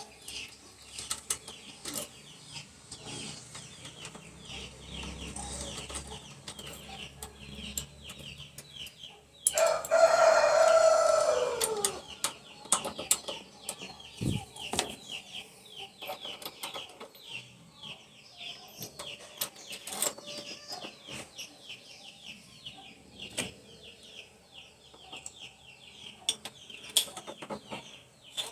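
Chickens and small birds chirping in quick, high repeats, with scattered clicks. About ten seconds in, a rooster gives one loud crow lasting a couple of seconds that falls in pitch at the end.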